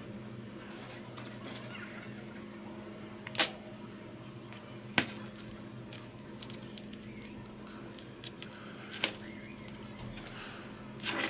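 Handling of a smartphone during back-glass prying: a few sharp clicks and light ticks as a thin metal opener and a playing card are worked into the phone's edge, the loudest about a third of the way in, with others near the middle and near the end. A steady low hum runs underneath.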